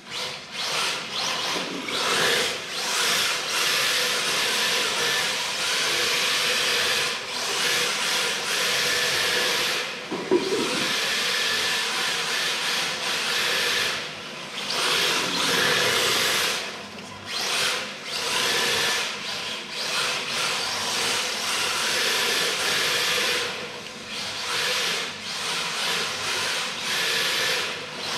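MST-chassis electric RC drift car driving on a tiled floor: its hard drift tyres hiss as they slide, over a faint motor whine, the noise coming in stretches with short breaks as the throttle is worked.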